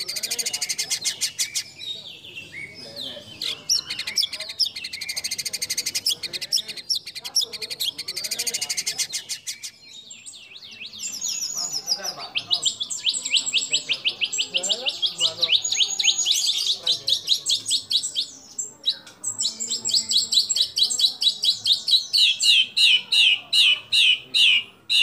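White-rumped shama (murai batu) in full song: long, varied, high-pitched phrases of rapid repeated notes and trills, with a brief lull about ten seconds in, and near the end a run of quick falling notes at about two to three a second.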